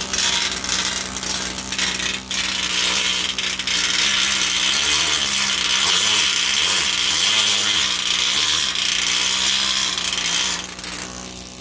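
Pneumatic needle scaler chattering steadily against the rusty steel frame rail of an International Scout 80, its needles hammering off rust and scale, with a brief dip near the end.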